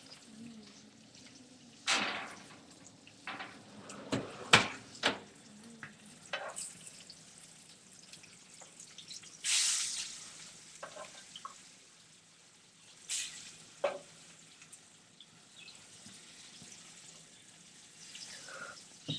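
Kitchen handling sounds: scattered knocks and clinks of cookware and utensils, with a brief rush of noise about halfway through.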